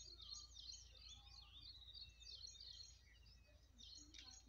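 Small birds chirping and twittering in quick, high notes throughout, faint, over a steady low rumble of background noise.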